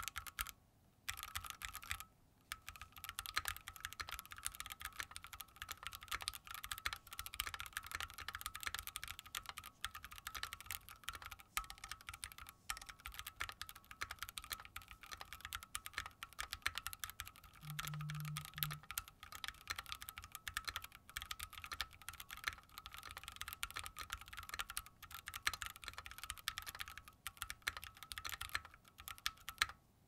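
Continuous typing on a Keychron Q1, an all-aluminium 75% gasket-mount mechanical keyboard with lubed switches, dense key clacks after a brief stop-start at the beginning. The keystrokes carry a hollow, slightly pingy ring, which comes from the flexing aluminium case rather than the switches. A brief low hum sounds just past the middle.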